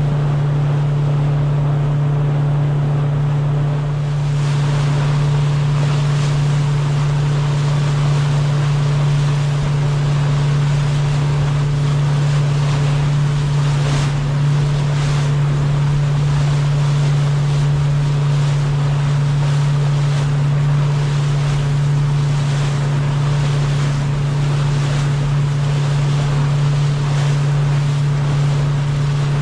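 A sailboat running under engine power: a steady low engine drone with the wake rushing and splashing along the hull. The water noise grows louder about four seconds in.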